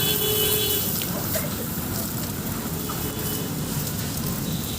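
Steady roadside traffic noise, with a short vehicle horn toot right at the start.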